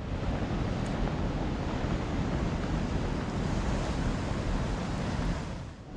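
Strong wind buffeting the microphone in a steady low rumble, over the wash of waves breaking on a rocky shore.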